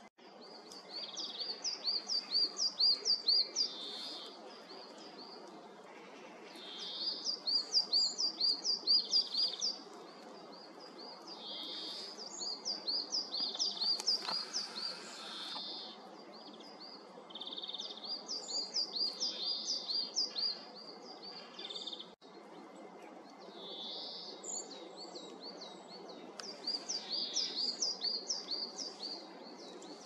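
European greenfinch singing: five phrases of quick, evenly repeated high twittering notes, each a few seconds long, with short pauses between them.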